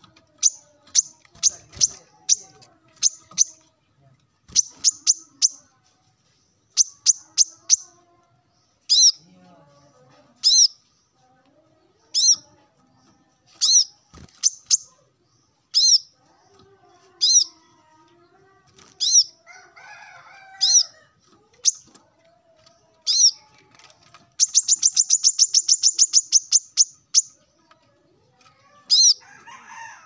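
Male brown-throated sunbird calling persistently. Its sharp high chirps come first in quick clusters of two to four, then singly about every second and a half, and near the end a fast trill of rapid notes lasts a couple of seconds. It is a male calling out to a rival.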